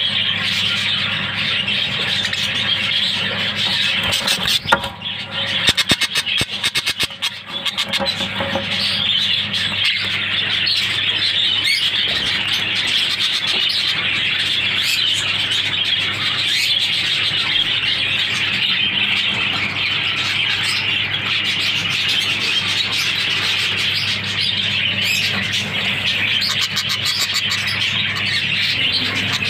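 Budgerigars chattering and warbling without a break, a dense high twittering over a steady low hum. There are a few knocks and rustles about four to eight seconds in.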